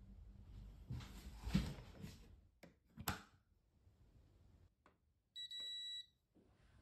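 Electric rice cooker being shut and started: a few soft handling knocks, then the lid snaps closed with a sharp click about three seconds in. Near the end comes a single steady electronic beep lasting under a second as the cooking cycle is switched on.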